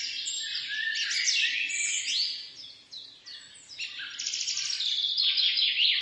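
Many birds chirping and calling over one another in a busy chorus, thinning out briefly about halfway through before picking up again.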